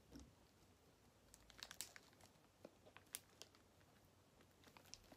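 Faint crinkles of a snack wrapper and soft eating sounds as a wrapped pizza is bitten into: a few scattered small clicks over a near-silent room.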